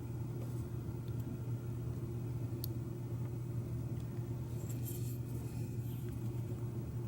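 Steady low background hum, with a few faint small clicks and a brief cluster of light metallic ticks and rustling about five seconds in, from small parts of a Schlage F-series knob cylinder being handled while it is opened for repinning.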